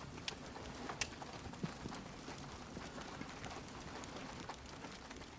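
Faint scattered clicks and ticks, irregular, the sharpest about a second in, over a low background hiss.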